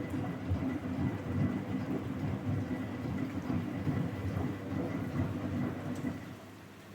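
Vintage Philco L54RX washing machine running its wash, a dense low churning of water and clothes with a faint steady high whine above it. The churning dies down about six seconds in.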